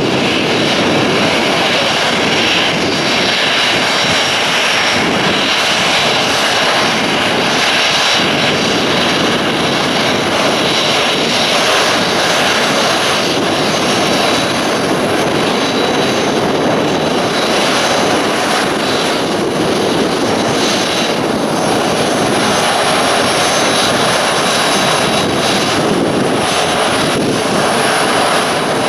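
Jet airliner's turbofan engines running loud and steady: a dense rushing noise with a faint high whine.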